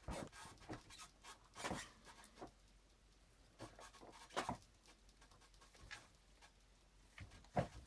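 Faint, irregular clicks and scrapes of a plastic ski binding being handled and slid on the ski's mounting plate.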